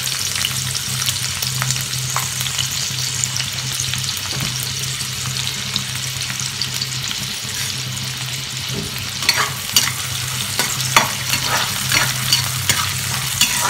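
Chopped onions sizzling in hot oil in a non-stick kadai, a steady frying hiss over a low hum. From about nine seconds in, a spoon stirs them, with sharp scrapes and clicks against the pan.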